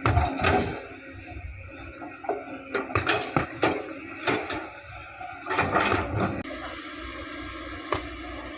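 Excavator loading sand into a dump truck: a string of irregular knocks and clanks over a steady engine hum, the knocks stopping after about six seconds.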